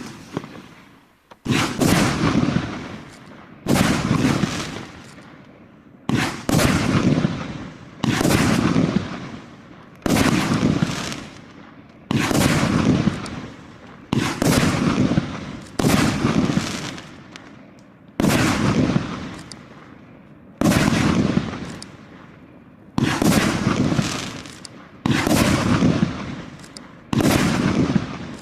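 A 25-shot 2-inch fireworks battery fires shot after shot, about one every two seconds. Each shot is a sharp launch bang followed by a fading hiss as the glitter-tailed shell climbs and breaks.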